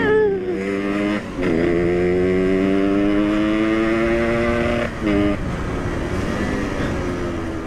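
Yamaha RX-King two-stroke single running hard through its aftermarket racing exhaust, accelerating with its pitch climbing steadily. The note breaks off briefly about a second in and again about five seconds in.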